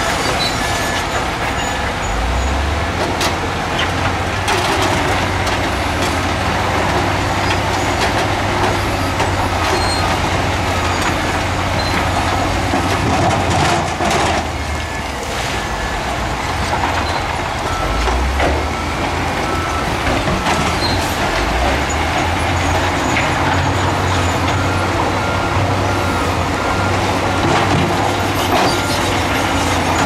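Heavy earthmoving machinery engines running steadily, with a reversing alarm beeping in short repeated tones at intervals.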